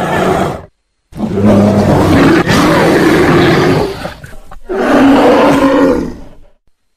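Bear roaring: one roar ends just before a second in, then after a brief silence comes a long, deep roar of about three seconds, followed by a shorter one about four and a half seconds in. Each stops abruptly, as if cut.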